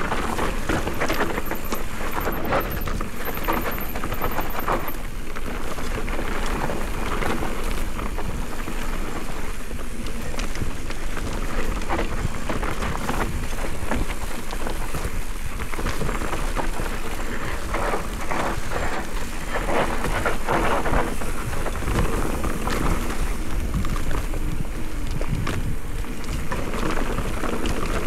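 Specialized Turbo Levo e-mountain bike riding down a loose, dusty dirt trail: tyres crunching over dirt and gravel, with a steady stream of small knocks and rattles from the bike. Wind buffets the camera microphone as a low rumble underneath.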